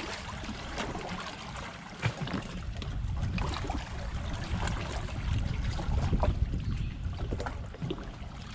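Water lapping and trickling around a drifting personal watercraft, with a low uneven rumble and scattered small clicks.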